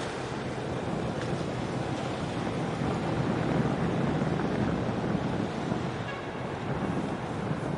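Steady low rushing rumble of wind on the microphone mixed with the wash and engine rumble of a cement carrier passing close by. It swells a little about halfway through.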